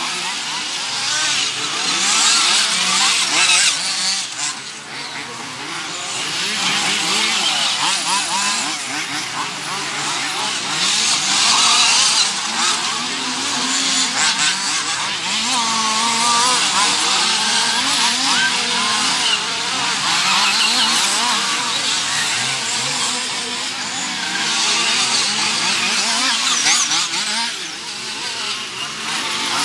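Several radio-controlled off-road buggies racing, their small engines overlapping in a buzzing whine that keeps rising and falling as they accelerate and brake.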